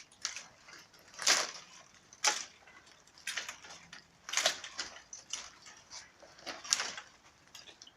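Wood of a small tree being cut at by hand: a short crunching, crackling stroke roughly once a second, six or seven in all.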